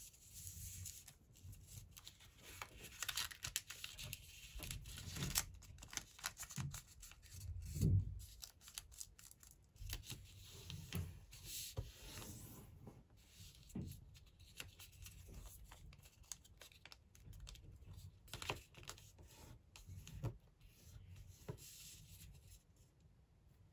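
Origami paper being folded and creased by hand: irregular crackling rustles and short sharp strokes as fingers press and run along the folds. A soft thump comes about eight seconds in.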